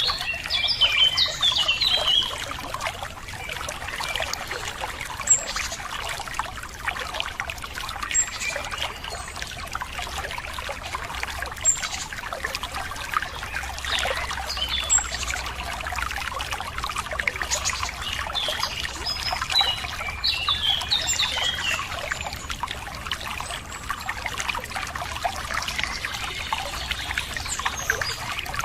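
Running water trickling and pouring steadily, with songbirds chirping over it. The chirps come in clusters near the start, again about two-thirds of the way through and at the end, with single short high chirps every few seconds between.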